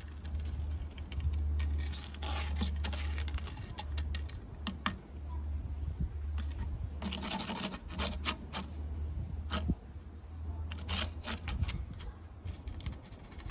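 A leaf rustling and scraping as it is brushed along a weathered wooden plank and over a cat, in irregular clusters of crackling scratches, over a steady low rumble.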